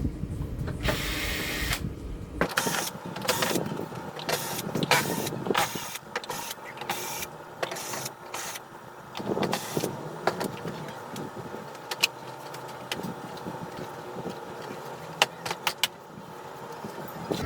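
Short whirring bursts of a small electric motor tool mixed with clicks and knocks of parts being handled, irregular and stop-start.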